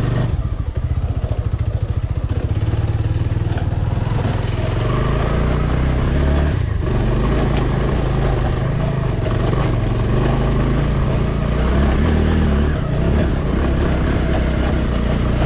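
200 cc single-cylinder motorcycle engine at low revs, pulsing evenly for the first couple of seconds, then running steadily with its pitch wandering up and down as the bike is ridden off-road.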